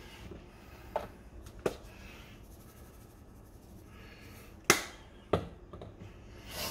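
Spice jars and a seasoning shaker handled on a kitchen countertop: several sharp clacks as they are picked up and set down, the loudest about two-thirds of the way through. Between them, soft rattling hiss of seasoning shaken from the shaker.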